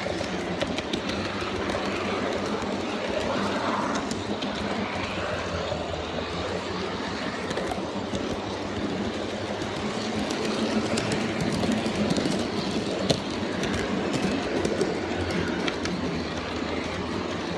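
G scale model train running along its track, a steady rolling sound with scattered light clicks and one sharper click about three-quarters of the way through.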